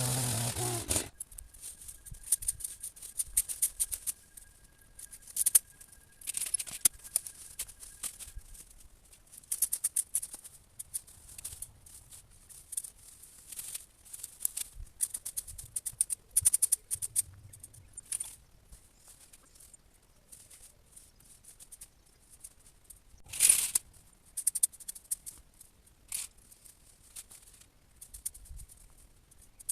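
A power tool's motor stops about a second in. After that come irregular bursts of crackling and rustling from dry berberis cuttings and twigs being handled, with one louder burst near the end.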